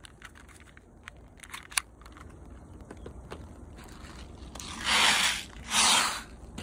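Small clicks and scrapes from a toy BB pistol being handled, with one sharp click a little under two seconds in. Near the end come two loud rushes of noise, each about half a second long and close together.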